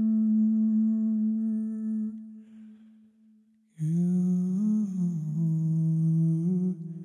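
Wordless humming in slow background music: a long held note fades away a couple of seconds in, and after a brief hush a new phrase of slow held notes rises and falls.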